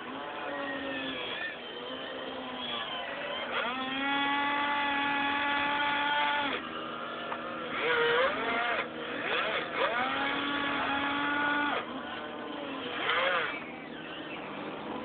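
Electric motors of a radio-controlled model excavator whining as it is operated. The whines start and stop every second or two and swing up and down in pitch, over a steady low hum.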